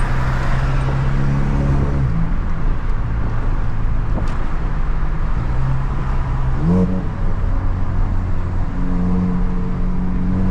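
Tuned Volkswagen Jetta 2.0 TSI engine, Stage 2 with downpipe and a near-straight exhaust, running while the car drives, over steady road noise. Its note drops about two seconds in, rises quickly about six and a half seconds in, and holds at the higher pitch.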